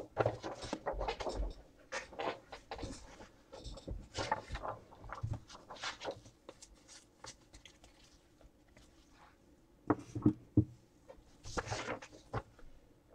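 Irregular rustling and tapping of things being handled, in dense bursts for the first several seconds, then again in two short spells near the end.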